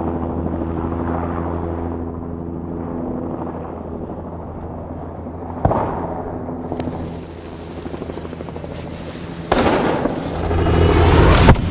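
Helicopter hovering overhead, its rotor and engine giving a steady low hum that fades after about seven seconds, with a single sharp crack about halfway through. About nine and a half seconds in comes a sudden loud crash as the dropped snowmobile hits the gravel, building to a peak just before the end.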